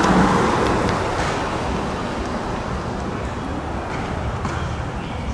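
Road traffic noise, a steady rush that slowly fades, with a few faint clicks.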